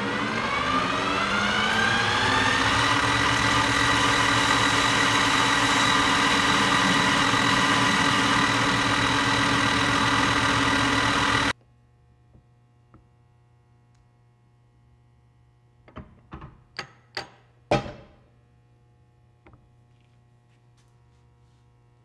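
A shop machine's electric motor spinning up, its whine rising for about two seconds, then running steadily until it stops abruptly about halfway through. Near silence follows, with a few light clicks and taps.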